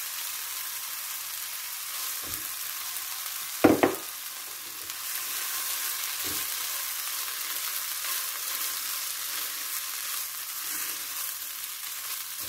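Shredded boiled chicken, onion and red bell pepper sizzling in a frying pan with a steady hiss while being stirred with a silicone spatula. A few short knocks against the pan, the loudest about four seconds in.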